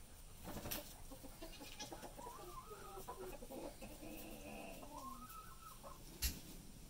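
Domestic turkey making a few seconds of quiet, wavering calls that rise and fall in pitch. A sharp knock comes near the end.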